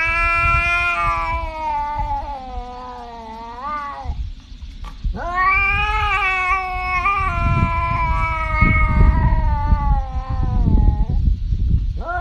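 Brown tabby cat yowling in two long, drawn-out calls with a short break between them. The first wavers downward and rises at its end, the second is held and then falls away, and a third call begins near the end. A low rumbling noise runs underneath.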